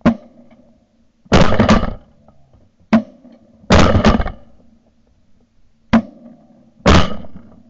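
Shotgun blasts picked up by a barrel-mounted camera: about six loud, sharp reports at uneven intervals, two of them drawn out into a short cluster of cracks, over a faint steady hum.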